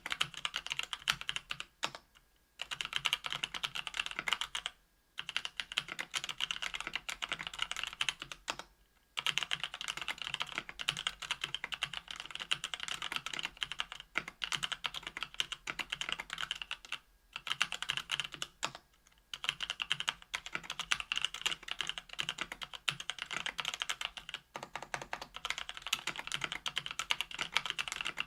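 Typing on a KBDfans Tofu 65% aluminum keyboard with stock Kailh Pro Burgundy 50 g linear switches on an aluminum plate and GMK keycaps: a fast, continuous run of keystroke clacks, broken by short pauses every few seconds.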